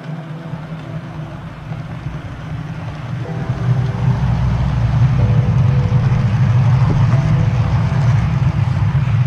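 Model train running past close by on the layout track, a low rumble of motor and wheels that grows louder over the first four seconds or so as the coaches come alongside, then stays steady.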